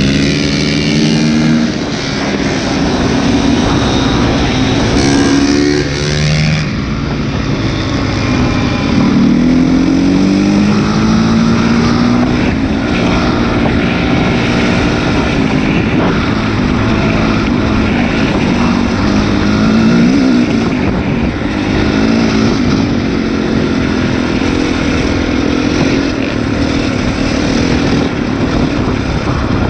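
Four-stroke motocross bike engine revving hard under acceleration, heard from on board the bike. Its pitch climbs and drops back several times as it shifts up through the gears, over steady wind and road rush.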